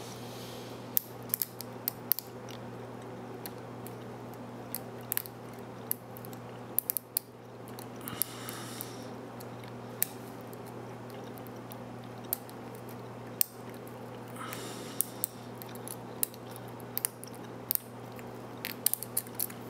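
Small metal tools working a Brinks 527 padlock: scattered sharp metallic clicks and a few short scrapes, over a steady low hum.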